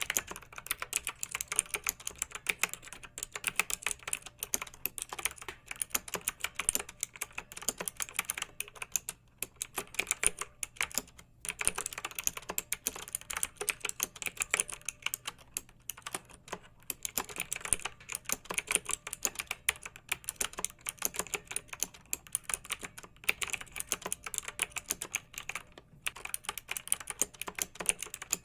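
Fast, continuous typing on a computer keyboard: a dense run of clicking keystrokes, broken by a few brief pauses.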